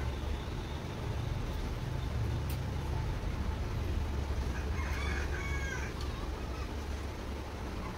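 A rooster crows once about five seconds in, a single call lasting about a second, over a steady low rumble.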